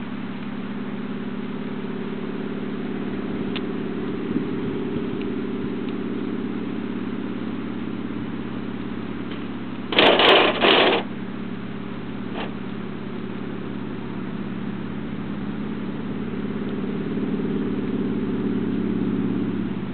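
Pratt & Whitney R-985 radial engine of a de Havilland DHC-2 Beaver droning steadily as the plane lands and rolls along a gravel strip, growing louder near the end as it comes closer. About halfway through a loud rush of noise, in two close bursts lasting about a second, covers it.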